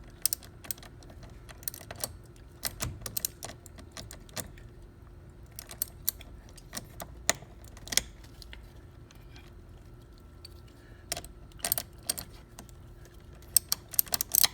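Ratchet wrench with a 10 mm socket clicking in short, irregular strokes as the nut on the car battery's positive terminal clamp is tightened down. There are a few sharp clicks at a time with pauses between them, and a dense run of clicks near the end.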